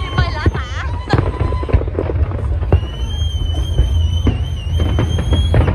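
Aerial fireworks bursting: a rapid run of sharp cracks and pops over a constant low rumble. A high, wavering tone is held over them for a few seconds in the second half.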